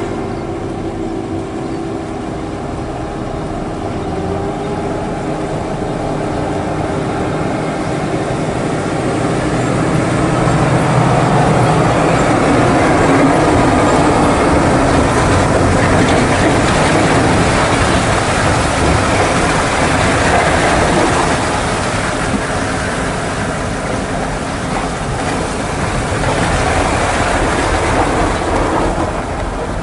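Heavy diesel coal-haul trucks, a Volvo FH and a Scania towing multi-axle side-tipping trailers, labouring uphill on a slippery grade. The engines pull under load, and the rumble and rattle of the loaded trailers grows louder toward the middle as they pass close, then swells again near the end.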